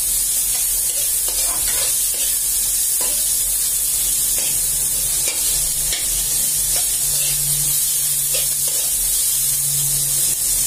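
Beef adobo and bean sprouts sizzling steadily in a metal wok, with a metal ladle scraping and tapping against the pan now and then as they are stirred.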